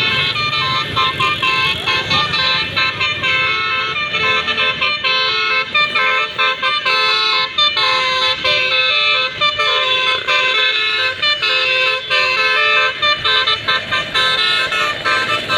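Tour bus 'telolet basuri' musical air horn playing a fast melody, loud horn notes changing pitch one after another with only brief breaks.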